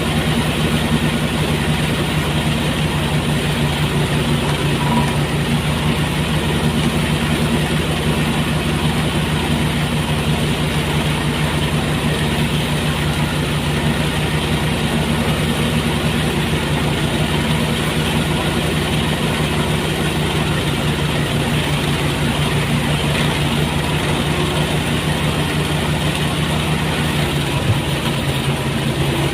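Motorised rice thresher running steadily at a constant engine speed while threshing rice.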